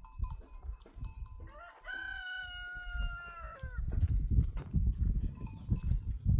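A rooster crowing once: a single long call that rises, holds and drops away. Low rumbling noise follows and is the loudest part of the second half.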